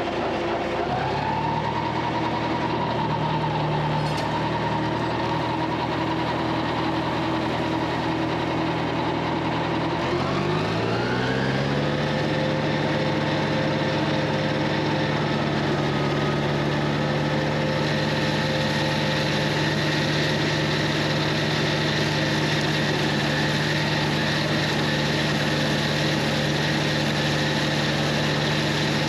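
John Deere 3020 tractor engine running, with the throttle brought up in two steps: a small rise in pitch about a second in, then a steeper climb about ten seconds in to a steady, higher working speed for mowing.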